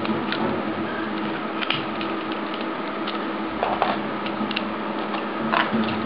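Scattered metal clicks and clinks from handling a VGARD steel disc padlock, its keyring and lock picks, with louder clatters about three and a half seconds in and near the end. A steady low hum runs underneath.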